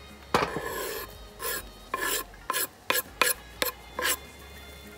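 Knife blade scraping minced garlic across a wooden cutting board into a pot: one longer scrape, then about seven short quick strokes.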